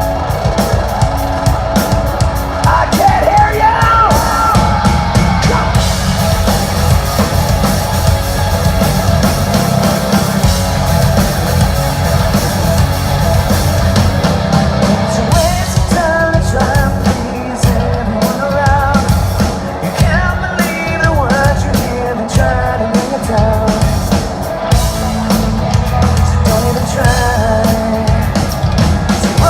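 Live rock band playing at concert volume, with distorted guitars, bass and drum kit, and a singer coming in with sung lines a few seconds in and again about halfway through.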